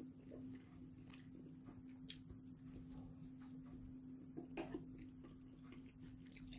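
Near silence with a steady low hum, and a few faint clicks of a spoon against a ceramic bowl and plate as curry sauce is spooned onto rice, the loudest a quick pair about four and a half seconds in.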